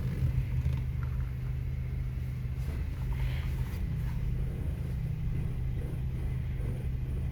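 2013 Honda Accord's engine idling steadily, with a brief creak from the front right suspension about three seconds in as the steering wheel is turned. The creak has survived replacement of the lower arm, both lower ball joints, the shock absorber mount and both tie rods, so its cause is still unknown.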